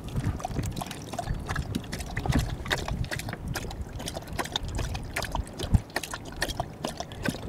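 Small, irregular wet splashes and clicks of water, coming quickly one after another over a low steady rumble.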